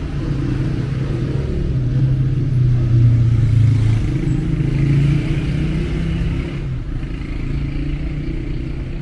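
City street traffic: a steady low rumble of passing cars and motorbikes, swelling for a few seconds in the middle as vehicles go by.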